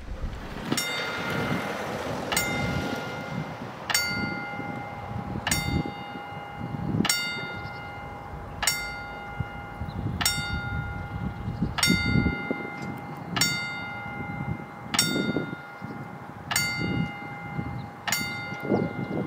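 Level crossing warning bell striking single rings at a steady pace, about one every one and a half seconds, twelve strokes, each ringing on until the next. It signals that the crossing is closing for an approaching train. Low wind rumble on the microphone underneath.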